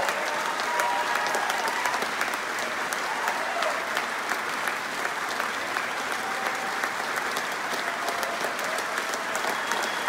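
Large audience applauding steadily, many hands clapping at once.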